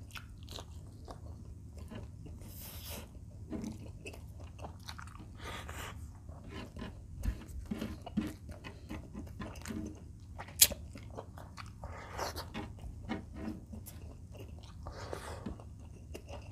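Close-miked chewing of fried chicken breast, with soft crunches of the fried coating and irregular mouth clicks, and one sharp click about ten and a half seconds in.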